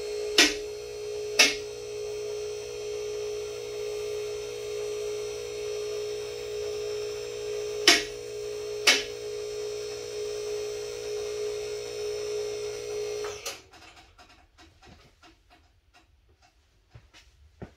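MaxJax M6K two-post lift's 110-volt electric hydraulic power unit running with a steady hum as it raises a pickup. Sharp clicks come in two pairs about a second apart, typical of the column safety locks catching as the carriage climbs. The pump cuts off about thirteen seconds in, leaving only faint ticks.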